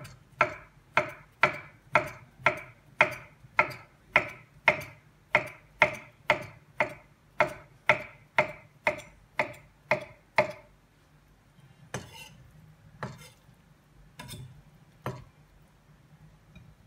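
Chef's knife chopping cooked zucchini flesh on an end-grain wooden cutting board, in steady strokes about two a second. The chopping stops about ten seconds in, followed by a few scattered knocks of the knife on the board.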